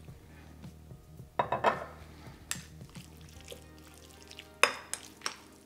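Chopsticks mixing oiled raw chicken pieces in a glass bowl: soft wet stirring with a few sharp clicks as the chopsticks knock against the glass, the loudest click about four and a half seconds in.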